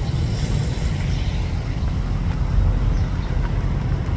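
Wind buffeting the microphone: a loud, irregular low rumble over faint street noise.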